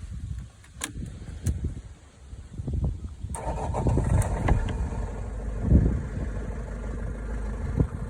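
Vauxhall Vivaro van's engine cranking, then catching suddenly about three seconds in and running steadily, with a brief louder surge a few seconds later. It now starts after a fault that had left it cranking without starting.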